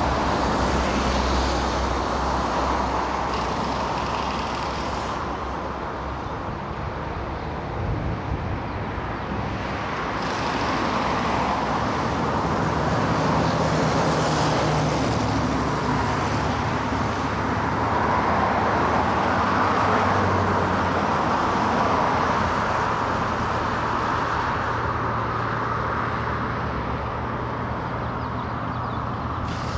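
Motor vehicle traffic noise: a steady wash of road noise with low engine hum that changes pitch every several seconds as vehicles come and go.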